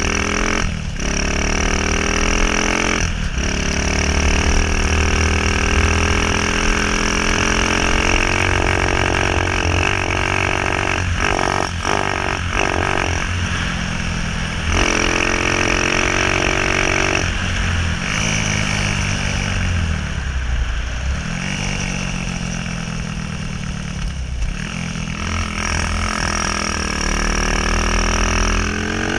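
Honda 185 grass kart's single-cylinder four-stroke engine running hard under throttle, its pitch climbing over the first several seconds, then dropping and picking up again several times as the throttle is eased and reopened. A few short knocks come about halfway through.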